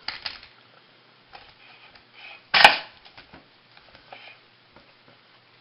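Small metal parts of a recoil pull starter clicking and tapping as they are handled, with one loud sharp snap about halfway through.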